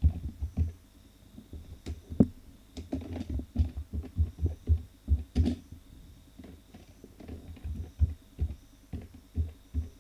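Computer keyboard being typed on: irregular keystrokes that come through mostly as dull low thumps with faint clicks, thinning out briefly a little past the middle.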